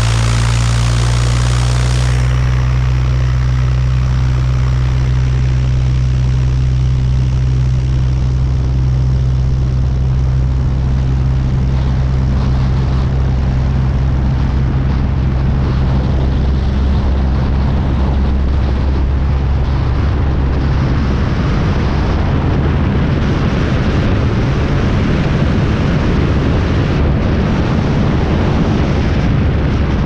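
Single-engine Cessna's piston engine and propeller running steadily on the ground. About halfway through the sound turns rougher and noisier.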